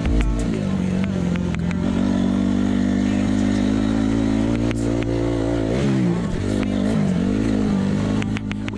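Off-road motorcycle engine running at steady revs, then dropping and picking up again twice near the end, with scattered clicks and knocks over it.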